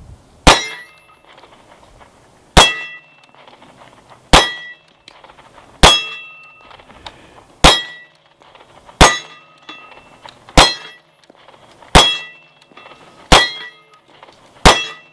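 Ten shots from a Springfield XD 3-inch 9mm pistol, each followed at once by the clang of a steel target ringing, spaced about one and a half seconds apart as she alternates between two steel plates. Every plate is hit, with no misses.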